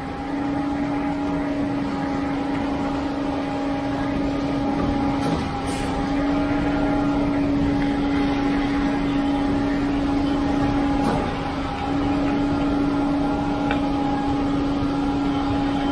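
Concrete pump truck running steadily while pumping concrete through the hose: a constant machine drone with a steady hum, dipping briefly twice.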